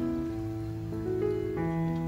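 Soft background music of slow, held notes that change every half second or so, over a faint sizzle of taro cakes frying in oil in a wok.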